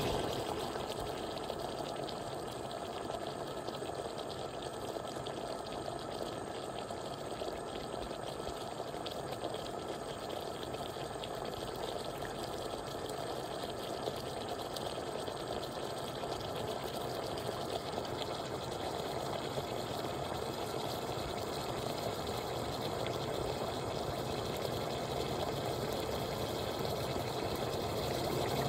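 9Barista stovetop espresso maker brewing: a steady hiss of espresso streaming into its steel collection cup, growing slightly louder near the end.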